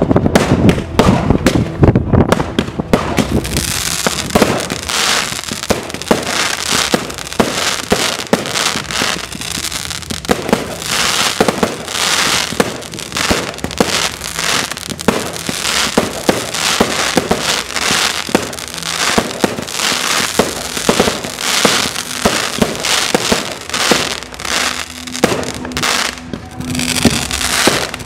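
Aerial fireworks display: shells bursting into crackling stars, a dense run of rapid pops and crackles. Heavier bangs come in the first few seconds.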